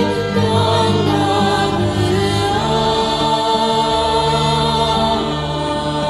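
Kyrgyz song: a woman's voice holding long notes with vibrato over steady instrumental backing.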